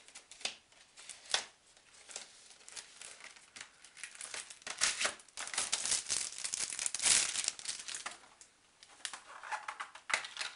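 Plastic packaging crinkling and crackling as it is pulled off a concealer palette by hand, busiest around the middle.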